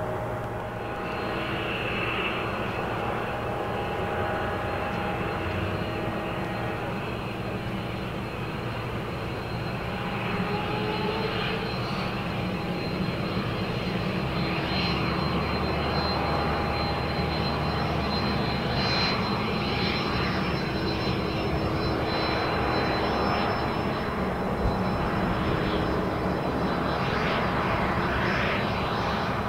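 Twin Williams FJ44 turbofan engines of a Cessna CitationJet CJ1+ running at low power as the jet rolls out along the runway after landing: a steady high whine over a rushing hum, growing louder about ten seconds in as the jet comes closer.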